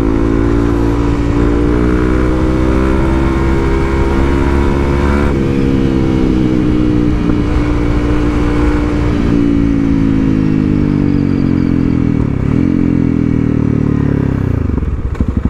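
Honda CRF300L's single-cylinder engine through an aftermarket FMF exhaust, under way on the road: it pulls with the pitch climbing steadily, drops sharply at an upshift about five seconds in, then eases off and falls in pitch from about ten seconds, with a brief dip near twelve seconds and a choppy off-throttle beat at the very end.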